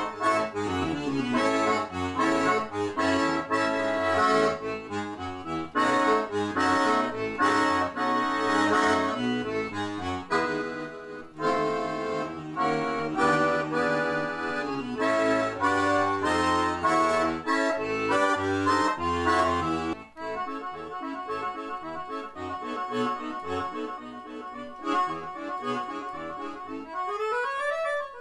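Roland digital accordion playing a lively ragtime-style piece, a melody over a moving bass line. The playing turns quieter about two-thirds of the way through.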